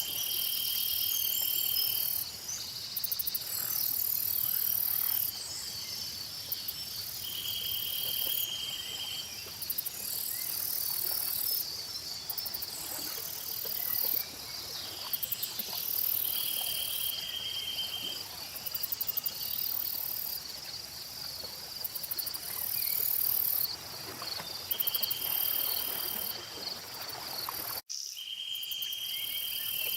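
A chorus of crickets and other insects chirping steadily, with very high buzzing that comes and goes every few seconds and a short, even trill recurring about five times. The whole sound cuts out for an instant near the end.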